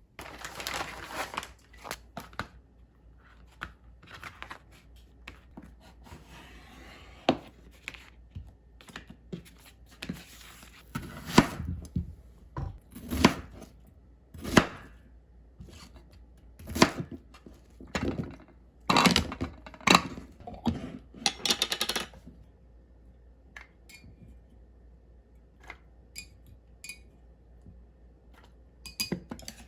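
Kitchen handling sounds: packaging or wrapping rustling and tearing, with irregular knocks and clunks of dishes and utensils. The knocks stop after about 22 seconds, leaving a faint steady hum and a few small ticks.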